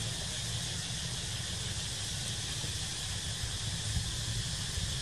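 Steady outdoor background: an even high hiss over a low rumble, with no distinct events.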